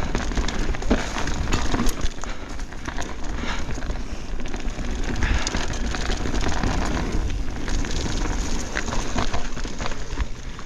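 A 2024 Pivot Switchblade full-suspension mountain bike riding fast down rocky singletrack: a steady rush of tyre and trail noise with scattered clicks and rattles, over a low wind rumble on the chest-mounted camera's microphone.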